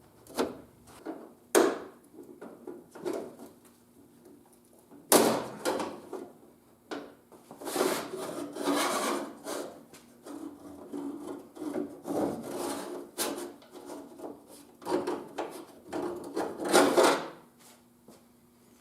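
Metal parts of a Jeep YJ door's interior handle and latch linkage being handled: scattered sharp clicks and knocks with stretches of scraping and rubbing in between, as the broken handle is worked loose.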